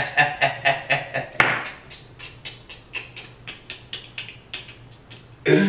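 A kitchen knife chopping potato on a cutting board in a steady rhythm, about four strokes a second, with a man laughing over the first second or so.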